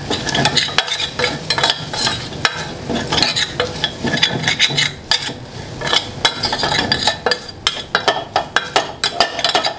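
Steel spoon stirring and scraping through onions, curry leaves and spice powders frying in a steel pan. The food sizzles steadily under frequent clicks of the spoon against the pan.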